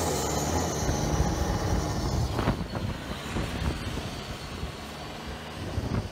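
Turbocharged diesel engine of a longtail racing boat coming off the throttle: the engine note drops away and a high turbo whine falls in pitch over the first couple of seconds, then holds steady as the rumble fades. Two knocks come about two and a half seconds in and near the end.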